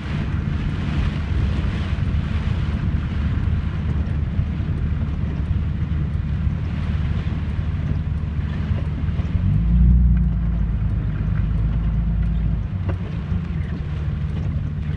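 Inside a moving car: steady low road and engine rumble with wind noise, swelling louder for a few seconds around ten seconds in.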